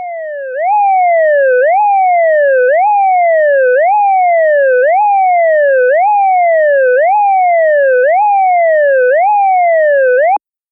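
Synthesized siren signal from an ASC digital electronic siren controller, the 'Wail' tone. It snaps up in pitch and slides back down about once a second. The first half second is quieter, and the tone cuts off suddenly near the end.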